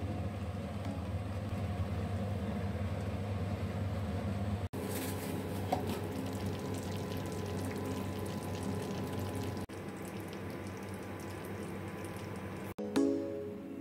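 Fish and vegetables simmering in coconut milk in a lidded frying pan: a steady bubbling over a low hum, broken off briefly a few times.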